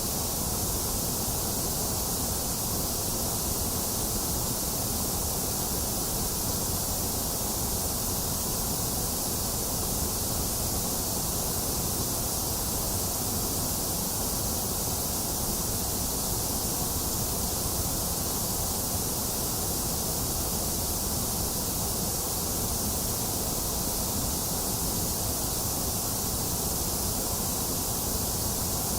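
Steady, unchanging synthetic white noise: an even hiss with a low rumble beneath and a dip in the middle pitches.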